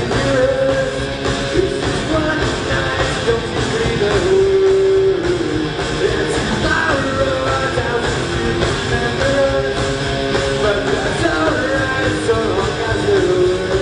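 A rock band playing live: electric guitars and drums with sung vocals, loud and continuous, heard from the crowd through the venue's PA.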